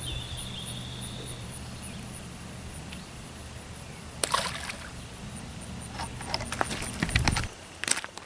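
Water sloshing and splashing, with scattered sharp clicks and knocks from about halfway through and an insect chirping steadily in the background.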